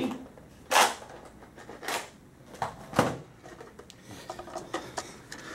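Handling and rummaging noises while a Nerf magazine is fetched: three sharp scraping knocks about a second apart, then a run of small clicks and rattles.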